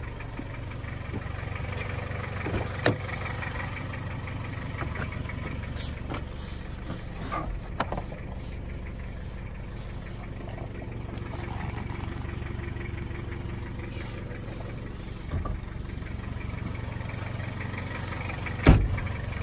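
Toyota Hilux turbo diesel engine idling steadily, with a few scattered clicks and knocks. The loudest is a sharp thump near the end.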